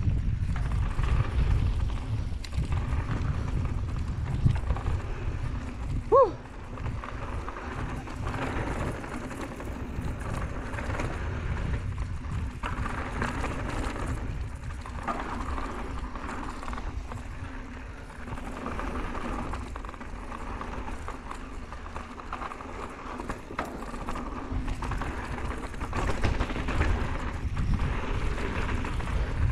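Mountain bike rolling fast down a dry dirt trail: tyres crunching over loose ground and the bike rattling over bumps, under a heavy low rumble on the microphone. A short squeal cuts in about six seconds in.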